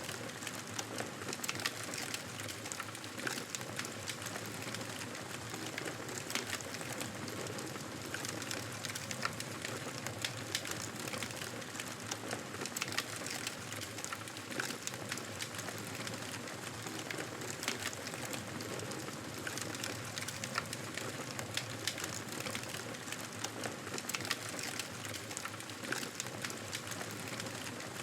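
Wood fire in a fireplace crackling, with frequent irregular small pops and snaps over a steady hiss.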